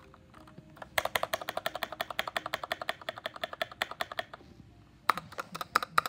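RK61 mechanical keyboard with red switches, its keys pressed hard and fast: a rapid run of key clicks, about nine a second, a short pause near the end, then another burst.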